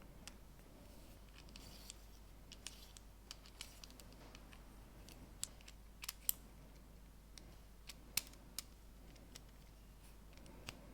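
Faint, scattered clicks and light scraping of plastic LEGO pieces being handled and pressed together, with a few sharper snaps around the middle.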